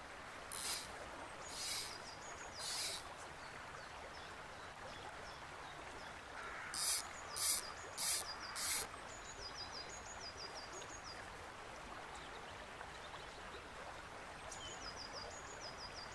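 Fly line swishing through the air on false casts over a steadily flowing river. There are three swishes about a second apart early on, then a run of four quicker, louder swishes. A small bird sings short runs of high chirps twice in the later part.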